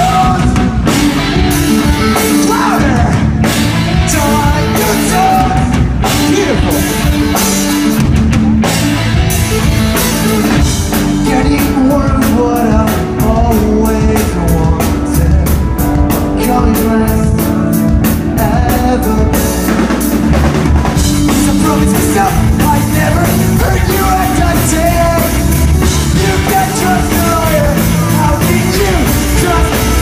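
Pop-punk band playing live and loud: electric guitars, bass and a drum kit with a lead singer.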